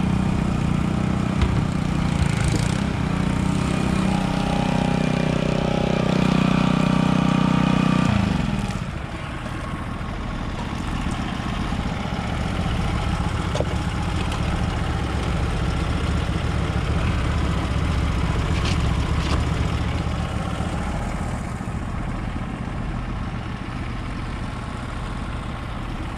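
Gas pressure washer engine running steadily; about eight seconds in it drops in pitch and loudness, then carries on running at the lower level.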